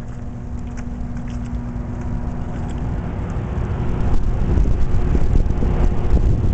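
Wind buffeting the microphone: a low, uneven rumble that grows stronger about four seconds in, with a faint steady hum underneath.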